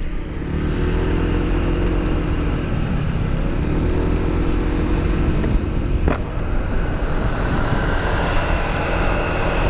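Wind rushing over a helmet-mounted camera's microphone while riding a motor scooter at road speed. An engine note swells and fades twice, and a higher whine rises near the end.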